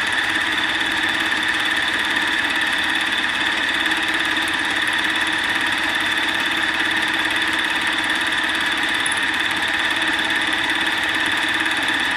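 Milling machine running with a steady whine as its spinning cutter takes a light skimming pass across the top of an aluminum block.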